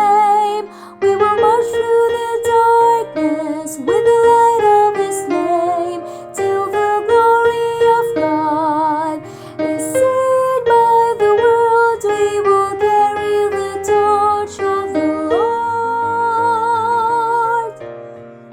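A mezzo-soprano singing her part of a choral hymn, held notes with vibrato, over piano accompaniment; the voice stops near the end, leaving the piano alone.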